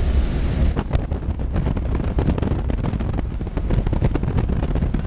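Inside the cabin of a small jump plane in flight: the engine's steady low drone and the rush of air, with irregular crackling wind buffeting on the microphone.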